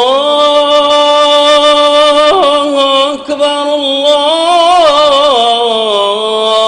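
A solo voice chanting in long, held, ornamented notes in a Middle Eastern Islamic style, with a short break for breath about three seconds in and a rise then fall in pitch near the end.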